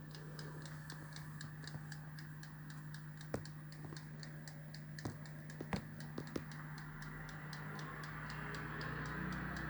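Clockwork timer of a 1970s Creda Compact 3 tumble dryer ticking faintly and evenly, over a steady low hum, with a few louder knocks around the middle.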